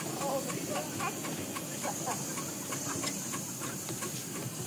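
Miniature steam locomotive under way, with a steady hiss of escaping steam and a quick, uneven run of light clicks and beats as it runs along the track.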